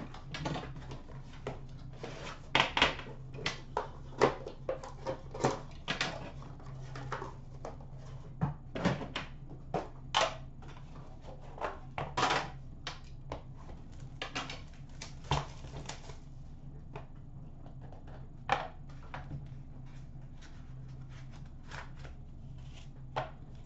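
A cardboard hockey card box being handled and opened: irregular scrapes, taps and rustles as the box slides out of its sleeve and the lid is lifted off, over a steady low hum.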